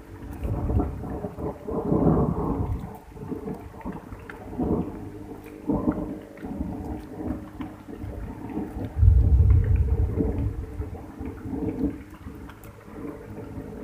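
Thunder rumbling in long rolls that swell and fade, loudest around two seconds in and again about nine seconds in, with light drizzle underneath.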